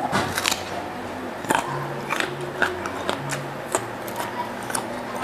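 Close-up mouth sounds of someone chewing a hand-fed mouthful of rice with salted fish, sambal and raw vegetables: irregular wet clicks and smacks. A faint low hum comes and goes underneath.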